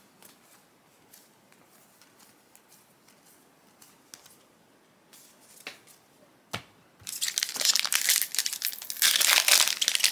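A few soft clicks and a single tap, then from about seven seconds in a loud, dense crinkling and tearing of a foil trading-card booster pack wrapper being ripped open.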